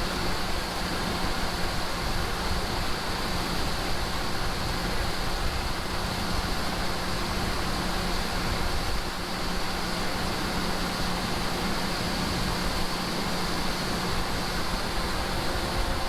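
Tractor running steadily in the field: an even engine drone with a constant low hum under a fan-like rush.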